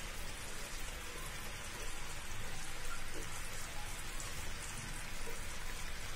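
Sugar syrup boiling vigorously in a nonstick pan: a steady bubbling hiss. The syrup is still short of one-string consistency.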